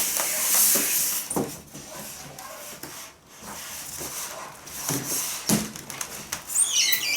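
Packaging being pulled off a new washing machine: cardboard and plastic scraping and rustling, with a few knocks, and a high squeak near the end.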